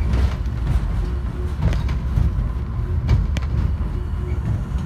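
Airport inter-terminal subway train running, heard from inside the car: a steady low rumble with a few short sharp clicks.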